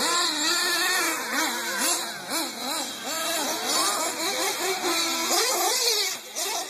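Several nitro RC truggies' small two-stroke glow-fuel engines racing, their high whines rising and falling over one another as the drivers throttle up and back off around the track.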